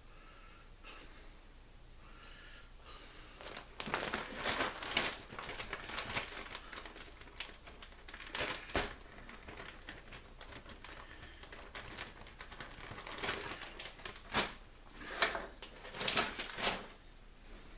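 Plastic bag of shredded mozzarella crinkling and rustling as it is handled, starting about four seconds in and coming in irregular spells.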